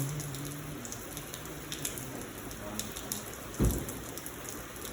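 Heavy rain falling steadily, with a single dull thump about three and a half seconds in.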